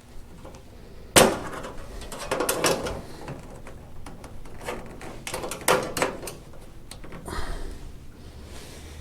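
Sharp knocks and clanks of work on the steel panels of a Mustang engine bay as they are adjusted into position. One hard hit about a second in, then clusters of knocks at about two and a half and six seconds in.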